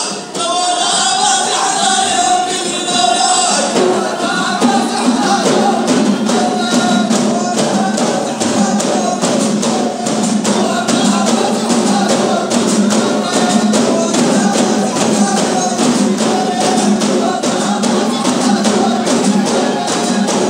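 Middle Atlas Amazigh Ahidous: a line of men and women singing together in long held notes, then, from about four seconds in, frame drums beaten in a fast steady rhythm under lower group chanting.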